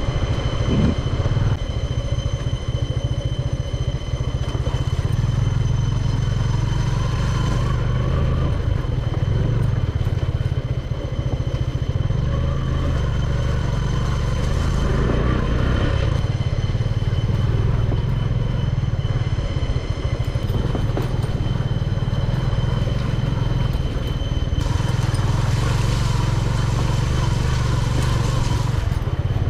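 Motorcycle engine running steadily while being ridden, its note shifting a little now and then.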